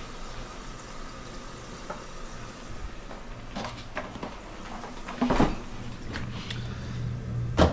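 Kitchen handling sounds: light clicks and knocks at the counter, then the refrigerator door opening with a loud knock and shutting with another near the end, a low hum running while it is open. Under the first few seconds, a faint steady hiss from dumplings steaming in a covered pan.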